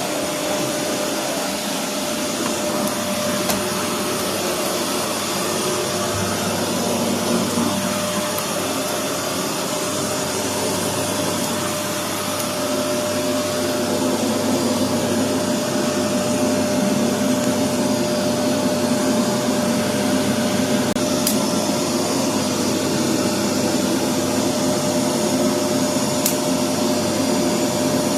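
Bush bagless vacuum cleaner running steadily, its motor noise carrying a thin, even whine.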